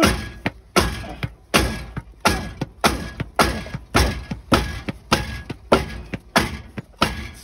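Rubber mallet beating on the exhaust catalytic converter under a Nissan Titan pickup, to knock loose the junk clogging it inside. Steady blows about one and a half a second, each followed by a brief ring from the exhaust.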